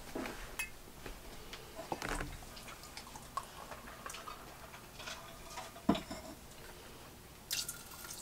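Small clicks and taps of a cream carton and a glass measuring cup being handled over a saucepan, with one sharper knock about six seconds in. Near the end comes a short rushing pour as heavy whipping cream is tipped from the measuring cup into the pan.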